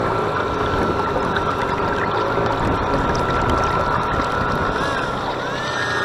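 Model Oakley lifeboat under way, heard from on board: a steady motor whine over water rushing along the hull and wind on the microphone. About five seconds in, a wavering whine that glides up and down begins.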